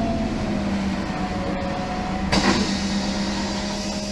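MAN NG 273 articulated bus's LPG engine running at a steady idle, heard from inside the bus, with a fainter steady tone above it. A single sharp knock a little past halfway.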